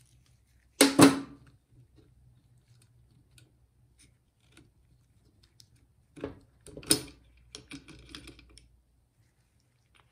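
Metal clanks and clicks of a wrench and small-engine parts being handled and set down on a steel workbench. A loud double clank comes about a second in, two more sharp knocks come past the middle, then a few light clicks.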